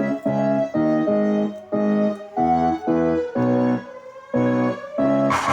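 Music played through a sound system: a song intro of short keyboard chord stabs, about two a second, with no drums or vocals yet.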